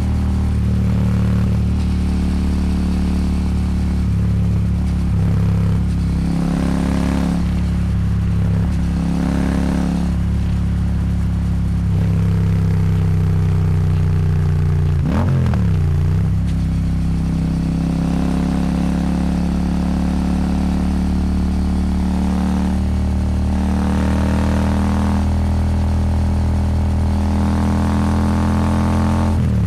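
Royal Enfield Super Meteor 650's parallel-twin engine running through an aftermarket slip-on exhaust at highway speed, a steady exhaust note. About halfway through, the engine's pitch drops sharply and climbs back.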